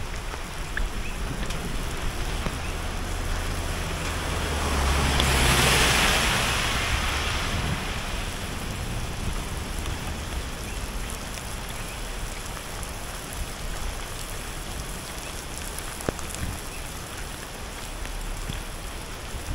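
Steady rain falling on wet streets, with wind on the microphone. A louder swell of hiss and low rumble rises and fades about five to seven seconds in.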